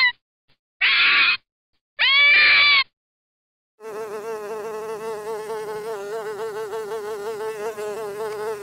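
A fox gives two short, high-pitched rising calls, the loudest sounds here. After a second's pause, a wasp buzzes steadily with a slight fast wobble in its drone.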